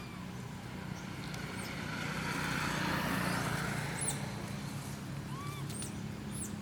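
A road vehicle passes by: its noise swells for a couple of seconds and then fades, over a steady low hum. Short, high chirps from birds or animals come on top, twice near the end.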